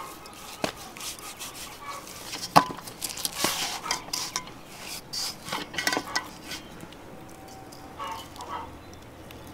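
Hands working ground spice into raw pork in an enamel basin: soft wet rubbing and handling of the meat, with a few sharp clinks of enamelware, the loudest about two and a half seconds in.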